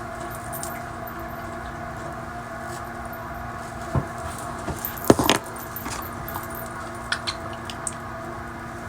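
A few small clicks and clatters of objects being handled: one about four seconds in, a louder cluster about a second later, and light ticks near the end, over a steady room hum.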